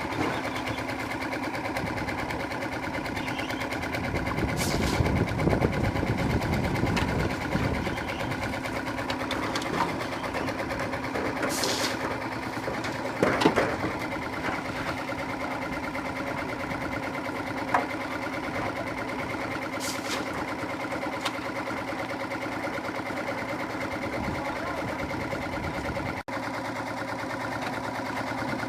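A machine engine running steadily with a constant hum, louder for a few seconds early on, with a few short knocks and clatters over it.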